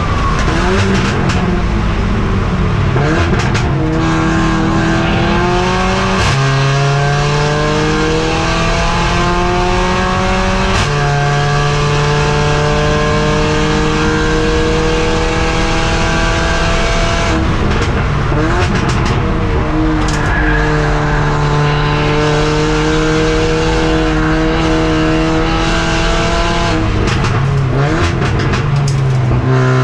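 In-car sound of a Mercedes-AMG CLA45 race car's turbocharged 2.0-litre four-cylinder engine under full throttle. Its pitch climbs and drops sharply at each upshift, three times in the first half. Midway it comes off the throttle and downshifts with a few sharp pops and crackles, then pulls hard up through the gears again, with more upshifts near the end.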